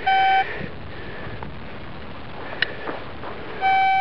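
Metal detector giving two steady, mid-pitched target beeps as its search coil sweeps over buried metal: a short one right at the start and a longer one near the end.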